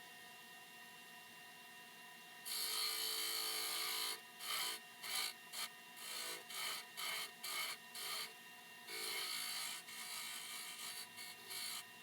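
A workpiece turning in the lathe is shaped in a series of short rasping strokes over the machine's steady hum: one long stroke about two and a half seconds in, then a run of shorter, irregular ones. This is the cutting of a Morse taper on a mandrel.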